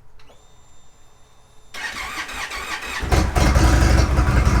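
Indian Roadmaster's V-twin engine being started: after a faint high whine, the starter cranks for about a second and a quarter, then the engine catches about three seconds in and runs. The start comes on a newly fitted starter solenoid, curing the bike's no-crank, no-start fault.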